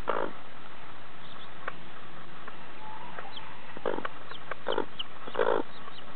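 Broody hen giving a few short, low clucks, the loudest near the end, while her young chicks answer with faint, high, falling peeps.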